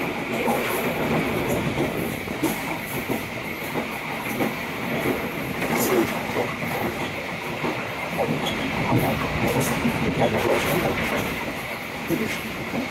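Passenger train coach running along the track: a continuous rumble of wheels on rail with scattered, uneven clicks and knocks, and a steady hiss.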